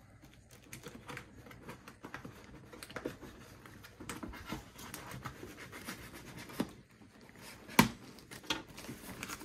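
Packing tape on a cardboard box being cut and scraped with a small blade, with irregular scratching and rustling of the cardboard under the hands and a sharp snap near the end.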